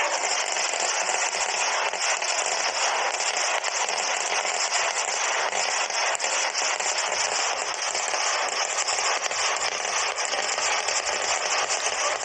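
Ground fireworks going off in a dense, rapid barrage of crackling that keeps on without a break.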